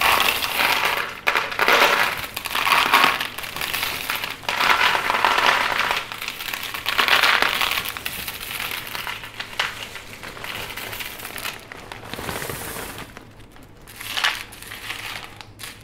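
Small natural pebbles poured from a plastic bag into a flower pot, rattling onto the stones already in it, with the bag crinkling. The pouring comes in several surges, louder in the first half. Near the end a hand pushes the pebbles around with a couple of short clatters.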